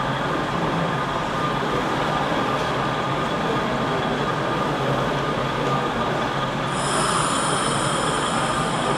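Steady background noise of a model railway exhibition hall, with a high-pitched whine joining about seven seconds in.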